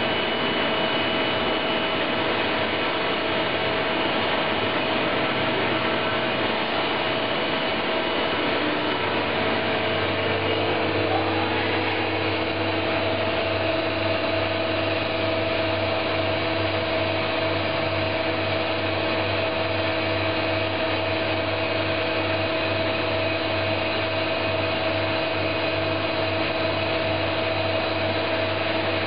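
Mazak VQC-20 vertical machining center running under power: a steady mechanical hum and whine with several fixed tones. A deeper hum and a second tone join about ten seconds in.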